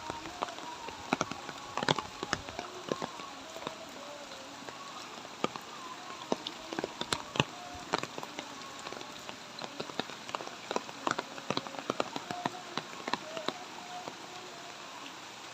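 Light rain falling: a steady patter with many sharp, separate drop hits, some ringing as short plinks.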